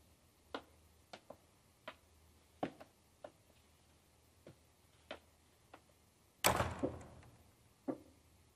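Scattered soft footsteps and light wooden knocks as a wooden cradle is carried and handled. About six and a half seconds in there is one louder thump with a short rustling tail.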